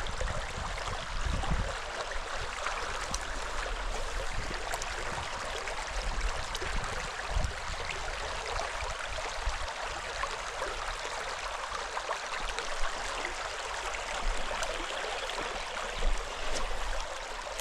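Shallow mountain stream running at low flow over rocks: a steady rushing, babbling water sound, with a few brief low bumps.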